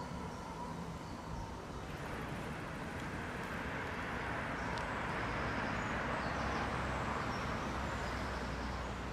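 CAF Urbos 100 tram approaching on its rails, a steady rolling rumble and hiss that swells as it comes nearer. At the very start, the faint whine of a tram pulling away fades out.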